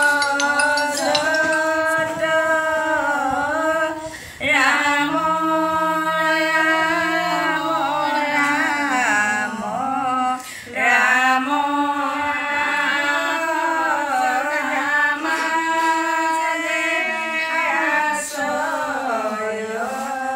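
Voices singing a devotional prayer chant in long, drawn-out phrases with gliding pitch, pausing briefly for breath about four and ten seconds in.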